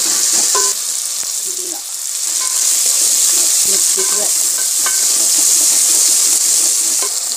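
Chopped tomatoes, green chilies and onions sizzling in hot oil, stirred with a spoon that scrapes and clicks against the pot. The sizzle dips briefly about two seconds in, then comes back louder.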